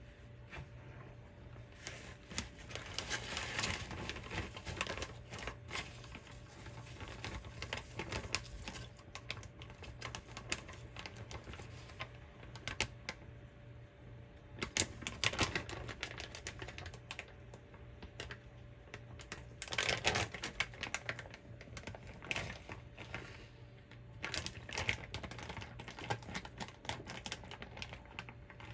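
Rapid, irregular clicking and tapping of hands and kitchen utensils at work during food preparation, coming in several louder flurries.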